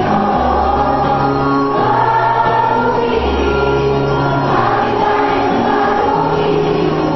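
A choir singing a hymn over instrumental accompaniment, with held bass notes changing about every second or so.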